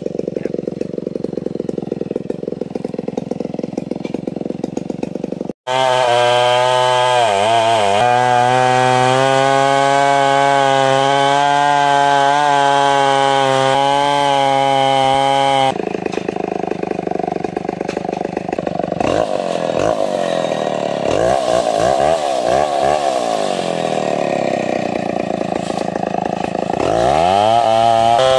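Stihl 070 two-stroke chainsaw ripping a log of ulin (Borneo ironwood) lengthwise at full throttle. The engine note sags and recovers again and again as the bar takes the load in the hard wood. Fainter at first, the sound cuts off briefly about five seconds in and then runs loud.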